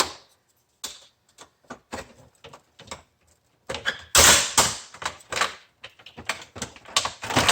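Clicks and knocks of hard plastic parts of a food vacuum sealer being handled and pried apart during disassembly, with a louder, longer scrape about four seconds in.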